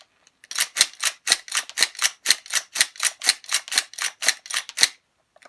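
Hi-capa gas blowback airsoft pistol running on high-pressure air through a magazine adapter, firing a rapid string of semi-automatic shots, about four a second, that stops near the end: a test that the magazine is feeding properly.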